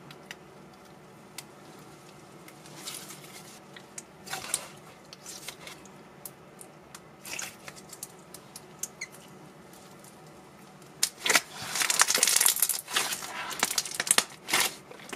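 Thick, glossy slime being squeezed and kneaded by hand, giving soft wet clicks and squelches. Near the end the clicks turn into a denser, louder crackling as the slime is pressed and folded.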